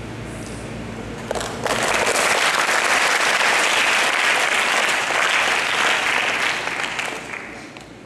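Audience applauding, starting suddenly about one and a half seconds in and dying away near the end.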